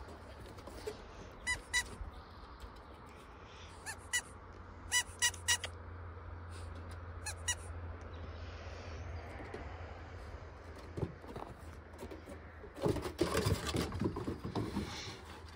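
Dogs playing on a wooden deck: short, high squeaks come singly and in quick twos and threes through the first half. Near the end comes a louder burst of scuffling paws and claws on the deck boards.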